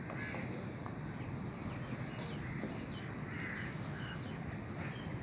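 Outdoor ambience: a steady low rumble with several short, faint bird calls scattered through it.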